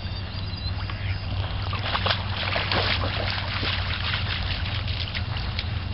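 A dog wading through shallow lake water, its legs splashing. The splashing is thickest from about a second and a half in to past the middle, over a steady low hum.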